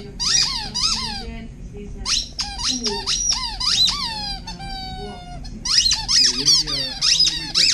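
An Alaskan Malamute chewing a purple spiky hedgehog squeaky toy, setting off squeak after squeak. Each squeak slides down in pitch; they come in quick clusters with a short lull about a second in, and a few longer drawn-out squeaks around five seconds in.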